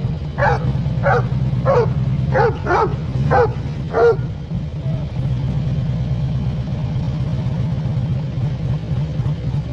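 A dog barking about seven times in quick succession, stopping about four seconds in, over the steady low rumble of a Harley-Davidson V-twin motorcycle engine.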